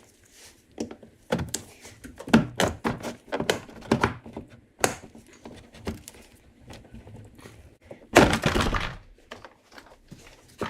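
Front door trim panel of a 2012 Ford Fusion being pulled off the door, its retaining clips popping loose in a run of sharp snaps and knocks. A louder, longer clatter comes about eight seconds in.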